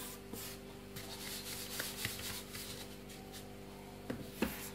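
Hands scooping and rubbing dry whole-wheat flour around a wide kneading dish: soft rustling and scraping, with a light knock near the end. A steady faint hum sits underneath.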